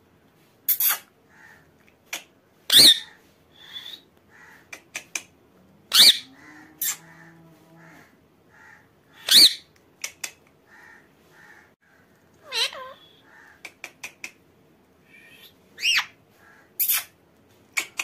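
Indian ringneck parakeet giving short, sharp screeching calls every couple of seconds, about eight in all, with soft quiet chatter between them.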